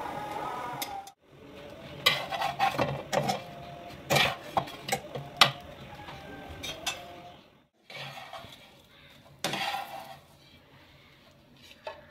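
A metal spatula knocking and scraping against a non-stick frying pan while turning slices of toasting brown bread. A quick run of sharp clinks comes in the first half, then one strong knock and a few softer taps later on.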